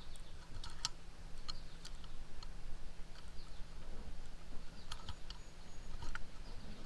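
Light metallic clicks and ticks of small parts being seated by hand in a Rochester Quadrajet carburetor's cast body: a handful of scattered clicks, with a quick cluster of three about five seconds in.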